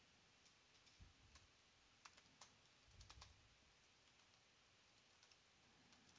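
Faint, scattered keystrokes on a computer keyboard as commands are typed, a few clicks in irregular clusters over an otherwise near-silent background.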